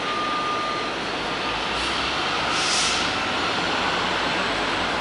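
R188 subway train running away from the station on the elevated 7 line, a steady rumble of wheels and motors. A thin squeal sounds for about the first second, and a short hiss comes a little past the middle.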